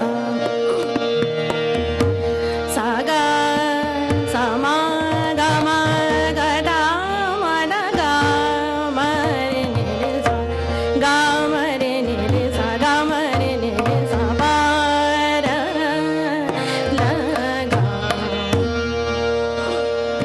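Hindustani classical vocal in raga Rageshree: a woman sings a gliding, ornamented melodic line over a steady drone from tanpura and harmonium, with tabla keeping the rhythm and deep bass strokes from the bayan.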